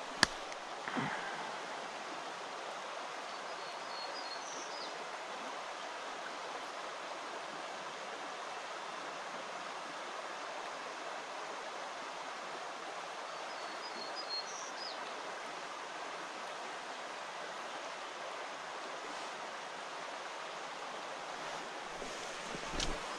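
A shallow creek flowing, an even, continuous rush of water.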